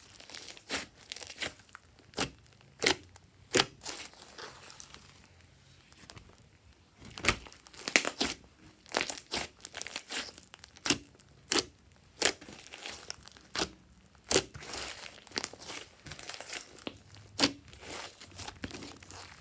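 Hands kneading and squeezing thick, bubbly slime: irregular sharp sticky pops and clicks as it is pressed, folded and pulled apart.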